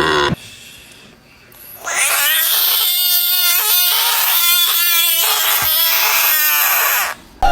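An animal's drawn-out wailing cries: several pitched calls in a row, starting about two seconds in after a short lull and stopping just before the end.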